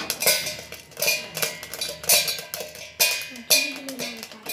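Sorghum grains popping in a hot metal kadai under a steel lid: irregular sharp pops and clinks, a few each second, as kernels burst and strike the lid.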